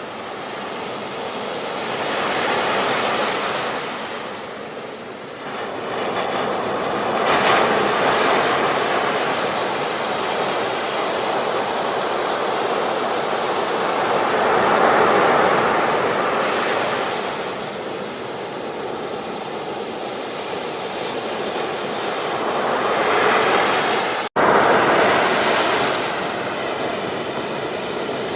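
Ocean surf breaking on a beach, a steady wash of noise that swells and ebbs every several seconds. Near the end it cuts out for an instant and comes straight back, like a splice in the recording.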